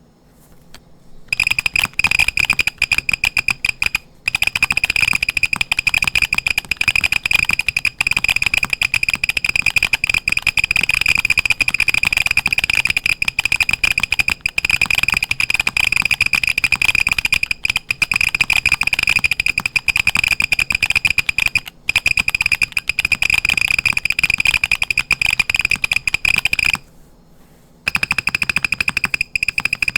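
Typing on an MM Studio Class80 mechanical keyboard with its built-in buzzer switched on. A high, nearly continuous beep sounds over the rapid key clicks, triggered on each key's downstroke and upstroke. The typing starts about a second in, breaks off briefly a couple of times, and stops for about a second near the end.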